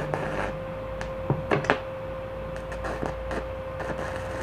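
Stick arc welding with a Lakoni Falcon 120e inverter welder set to 100: the arc crackles in irregular snaps over a steady high hum. The repaired welder is striking and holding an arc normally again.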